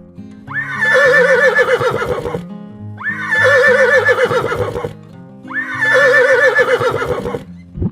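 A horse whinnying three times, each call about two seconds long, rising sharply and then quavering, over background music.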